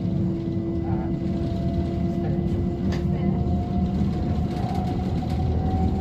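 Class 377/6 electric train's traction motor whining inside the carriage over the low rumble of the running gear: two steady tones, the upper one rising slightly in pitch from about four and a half seconds in as the train gathers speed. The motor noise sounds dodgy and pretty broken; the rider is not sure whether something needs lubricating or tightening.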